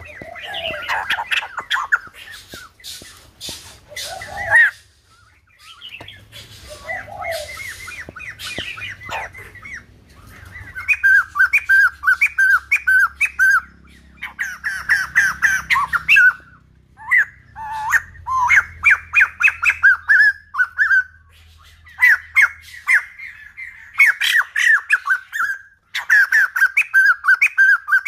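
White-crested laughingthrush calling in bursts of quick, repeated chattering notes, with a few clicks near the start.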